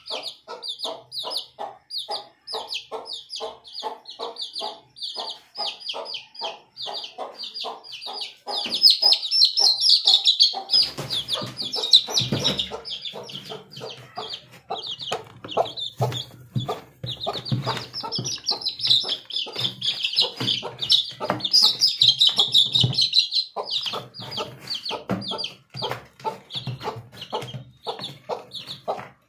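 Domestic chicks peeping in a steady string of short high calls, two or three a second, with a mother hen clucking beneath them; the peeping grows louder and denser for stretches in the middle.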